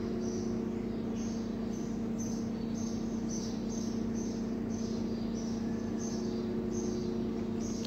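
Short, high-pitched chirps repeating about twice a second, alternating between two pitches, over a steady low hum.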